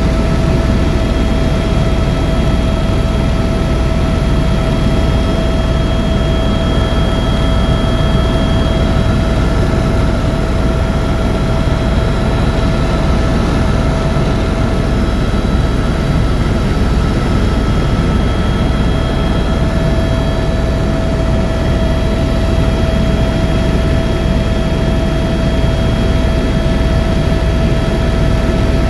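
Tour helicopter in flight: steady, unchanging rotor and turbine noise with a constant high whine over it.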